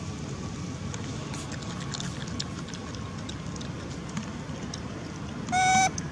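Steady low outdoor rumble with faint scattered clicks. Near the end comes one short, loud, steady-pitched tone.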